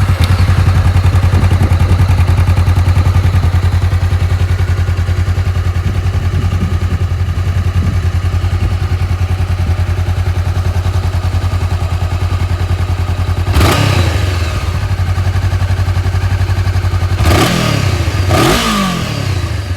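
Honda CBR500R's parallel-twin engine through its stock muffler, idling steadily, then revved three times near the end, each blip rising and falling back to idle.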